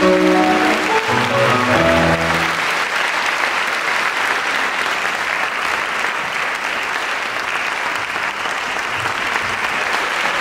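Grand piano music ends about two and a half seconds in, and the audience breaks into steady applause.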